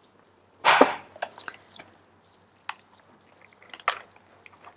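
Handling noise from a phone and its packaging. A loud rustle comes just under a second in, followed by scattered light clicks and taps.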